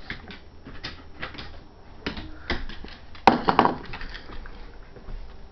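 A dog food bowl of dry kibble being handled and set down on the floor, with small clicks and rattles and one sharp clatter about three seconds in.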